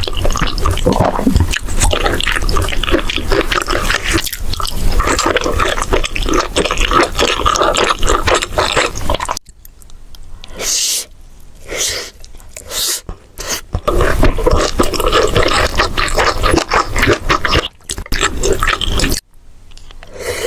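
Close-miked mukbang eating sounds: loud chewing with many small crackles, dense for about nine seconds, then breaking into short separate mouthfuls for a few seconds, then dense again before stopping just before the end.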